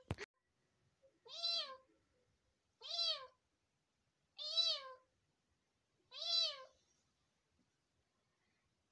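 Kitten meowing four times, about a second and a half apart, each high call rising then falling in pitch.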